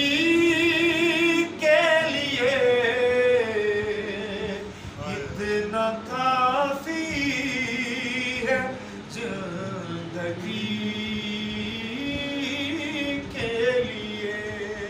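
A man singing a naat, an Urdu devotional song, unaccompanied, in long held notes that waver and glide between pitches.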